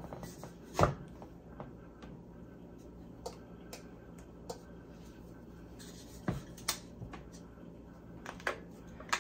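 Handling noise at a tumbler heat press: a few short clicks and knocks with light rubbing as a paper-wrapped sublimation tumbler is slid into a press station and the press handle is gripped. The sharpest knock comes about a second in, with two more close together past the middle.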